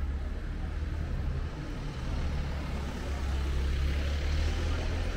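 A motor vehicle's low engine rumble in the street, with a rush of traffic noise swelling about three to four seconds in.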